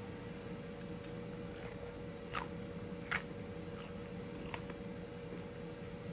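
A person chewing crunchy air-fried chicken cartilage, with a few sharp crunches about two, three and four and a half seconds in, over a faint steady hum.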